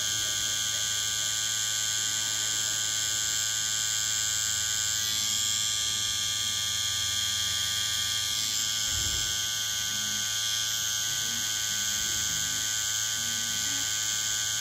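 Cartridge tattoo machine running with a steady, unbroken buzz while its needle shades fur texture into skin.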